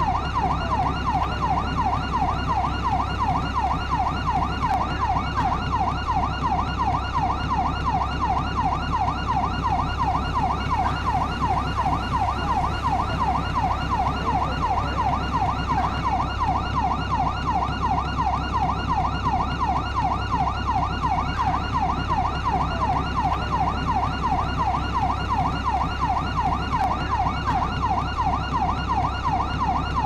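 LAPD police siren in yelp mode: a rapid wail sweeping up and down in pitch, about three times a second, without a break, over a steady low hum.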